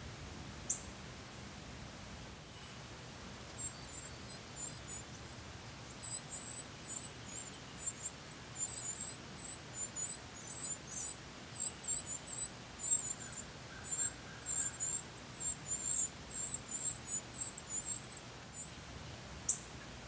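Northern cardinal nestlings begging for food: rapid runs of very high-pitched chirps that start a few seconds in and stop near the end, while the female feeds them. A single sharp high note sounds just before the begging starts and another just after it ends.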